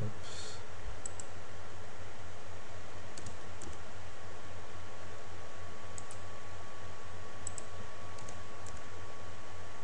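A handful of light, sharp computer clicks, several in quick pairs, from mouse buttons and keys used while editing a 3D model, over a steady low hum.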